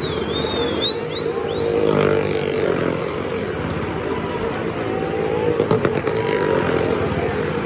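Car and motorcycle engines running steadily as they circle on the wooden wall of a well-of-death drum. A few high, wavering whistles come in the first second and a half, and a brief clatter comes about six seconds in.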